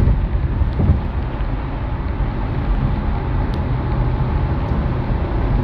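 Car driving in traffic: a steady low rumble of road and engine noise.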